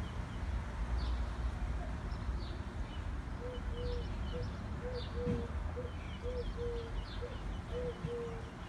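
Birds calling outdoors: short high chirps throughout, and from about three seconds in a low, soft hooting call repeated quickly in a steady series, over a steady low background rumble.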